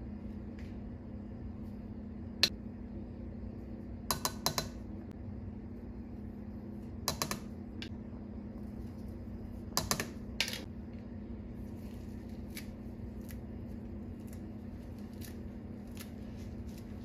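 Spoons clinking against a glass mixing bowl while boiled potatoes are mashed and spices are added: a few sharp clinks, some in quick clusters, with fainter ticks later, over a steady low hum.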